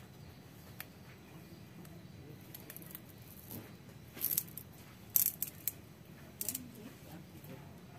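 Small knife blade cutting and scraping at the fibrous husk and stem base of a coconut bonsai. It makes short, crisp strokes in three brief groups, about four, five and six and a half seconds in.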